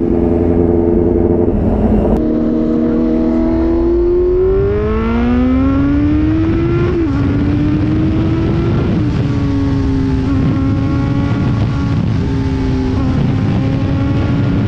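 Kawasaki Z900's inline-four engine accelerating on the road. The revs climb, drop sharply at an upshift about seven seconds in, rise briefly, drop again at a second shift, then hold steady. A constant low rush of wind and road noise runs underneath.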